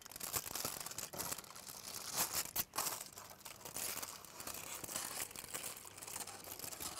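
Aluminium foil crinkling and crackling as a foil parcel is peeled open and pulled back, in a continuous run of rustles and crackles.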